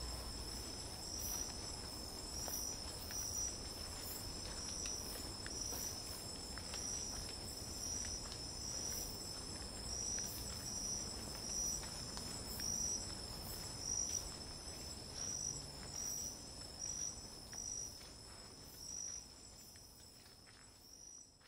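Night-time forest insect chorus: steady high-pitched trilling with a pulsed call repeating about twice a second, fading out near the end.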